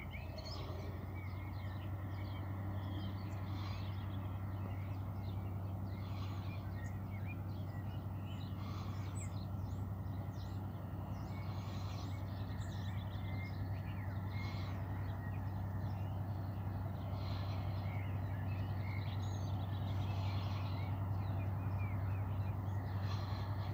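Small birds chirping and calling on and off, over a steady low hum that grows slowly louder.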